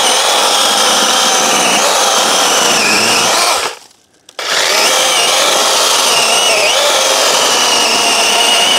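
DeWalt 20V MAX XR 12-inch battery chainsaw (DCCS620) running and cutting into a dead log, its pitch sagging briefly as it loads up in the wood. It stops for about half a second about four seconds in, then runs and cuts again.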